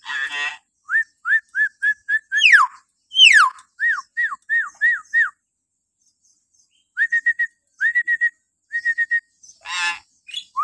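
Hill myna whistling: a quick run of short, clear hooked notes, two long falling whistles among them, a pause, then another rapid run of short notes. A harsh call opens the run, and another comes near the end.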